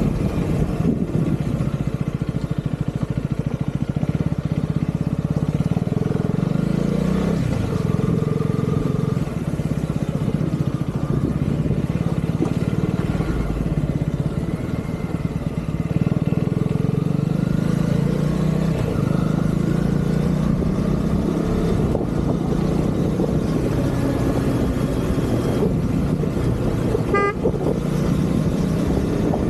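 Husqvarna Vitpilen motorcycle engine running while riding, its pitch rising and falling with the throttle. A brief horn beep sounds near the end.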